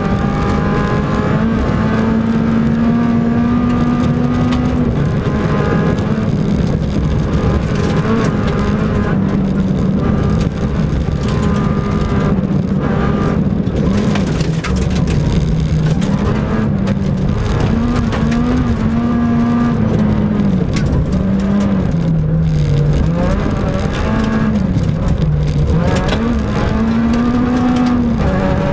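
Peugeot 106 rally car's four-cylinder engine heard from inside the cabin, pulling hard on a gravel stage, its pitch rising and dropping with gear changes and lifts. Gravel rattles against the car's underside throughout.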